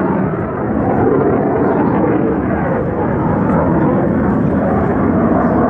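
Jet noise from an F-16 fighter flying a display overhead: a loud, steady rushing roar from its single jet engine.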